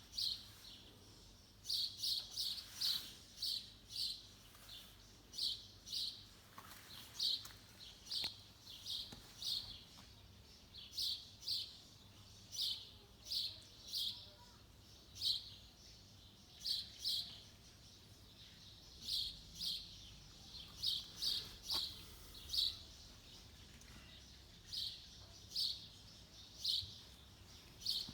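A small bird chirping over and over: short, high chirps in irregular runs, about two a second.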